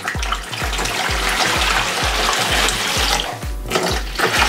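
Water pouring from a plastic pitcher and splashing into the empty plastic basin of a Little Tikes Splish Splash toy sink, over background music with a steady beat. The pour breaks off briefly about three and a half seconds in, then starts again.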